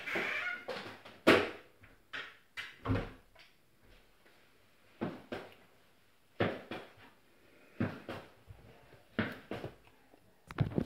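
Irregular knocks and brief clattering rattles, about one every second or so, with the loudest sharp knock about a second in.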